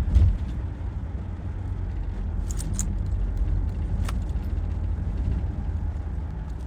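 Steady low rumble of a moving car heard from inside the cabin, with a single thump just after the start and a few faint ticks.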